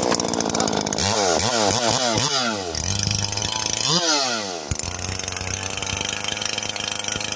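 Big-bore Stihl MS440 two-stroke chainsaw, just fired up, with the throttle blipped in about four quick revs in the first few seconds and once more near the middle, then running steadily as its carburettor tune is checked.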